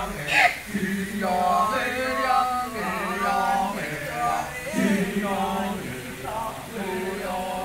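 Male chorus of Kecak dancers chanting together, phrases of sung notes over a held low note, with no instruments. A sharp loud sound about half a second in.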